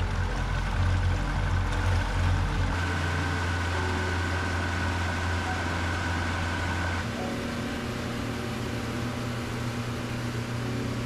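Boat motor running steadily, a low hum whose note changes about three seconds in and again near seven seconds.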